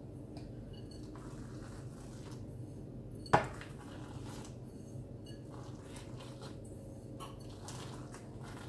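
Chopped nut filling being sprinkled by hand over phyllo sheets in a round aluminium baking tray, with faint rustling and one sharp clink of dishware about three seconds in, over a steady low hum.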